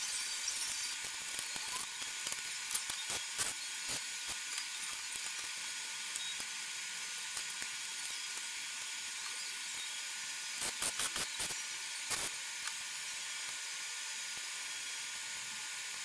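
Scattered light clicks and taps of small plastic and metal laptop parts being handled during disassembly, a few around three seconds in and a quick cluster about eleven seconds in, over a steady high hiss.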